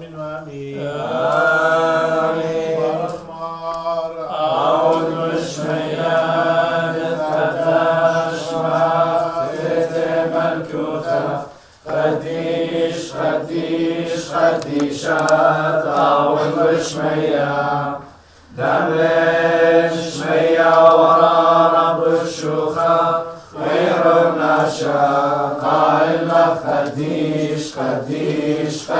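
A group of voices chanting a liturgical hymn together in unison, in long sung phrases that break off briefly about 12 seconds in and again about 18 seconds in.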